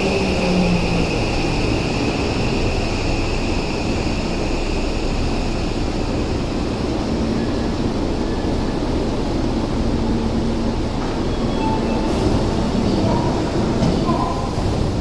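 Seibu 6000 series metro train running into an underground platform and braking to a stop, a steady rumble whose higher whine fades as it slows. Short electronic beeps sound near the end as the doors open.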